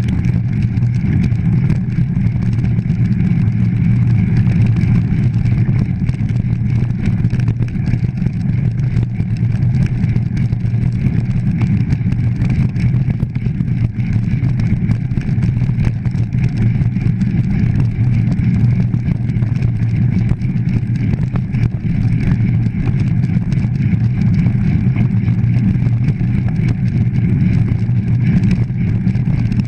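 Steady low rumble of wind buffeting the camera microphone, together with the mountain bike's tyres rolling fast over a gravel track.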